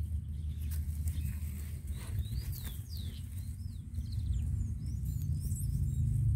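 Birds chirping: a run of short, quick whistled notes starting about two seconds in, over a steady low rumble.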